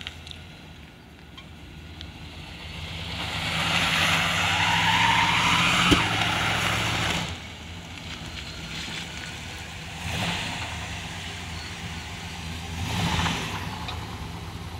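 1967 Buick Wildcat's V8 revving hard while a rear tyre spins and squeals in a burnout for about four seconds, then cutting off suddenly, followed by two shorter bursts of revving and wheelspin. Only one rear wheel spins, which appears to mean the car has an open rear end rather than Positraction.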